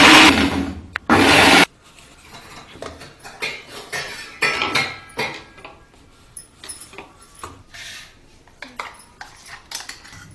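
An electric mixer grinder runs in two short pulses at the start, the first about a second long, the second about half a second. Then a spoon scrapes and clinks against the steel grinder jar and a steel bowl as the thick ground chutney is scooped out.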